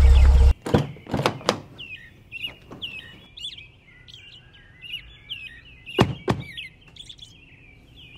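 Small birds chirping over and over, with sharp thunks of a car door: three in the first second and a half, and two more about six seconds in. A loud car engine cuts off suddenly half a second in.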